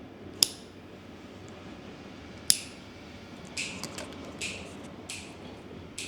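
Nail clippers snapping: two sharp metallic clicks about two seconds apart, then about five softer snips over the last few seconds.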